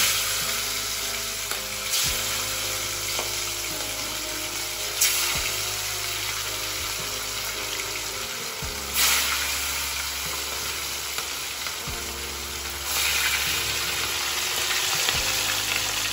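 Marinated catla fish pieces sizzling in hot oil in a kadai. The sizzle flares up each time another piece is slid in, about five times.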